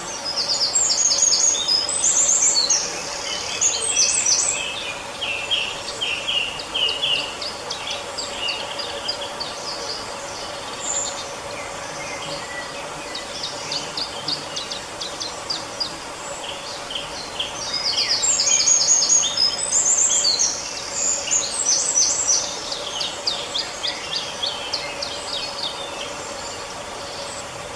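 Small songbird singing a rapid twittering song in two long loud bouts, the first at the start and the second about two-thirds of the way through, with scattered chirps between them over a faint steady hum.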